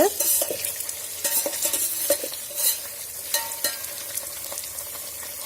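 Paneer cubes sizzling as they fry in hot oil, with a metal spoon scraping and clinking against the pan as they are stirred at irregular moments.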